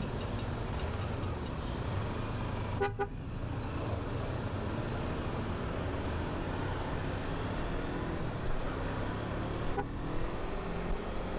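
Kawasaki Versys 250 parallel-twin motorcycle engine running steadily on the road, with road and wind noise. A short vehicle-horn toot comes about three seconds in.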